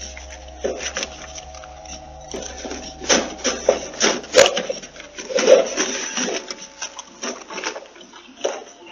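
Irregular clattering and knocking with several sharp clicks, busiest in the middle, over a low hum that fades out about two-thirds of the way in.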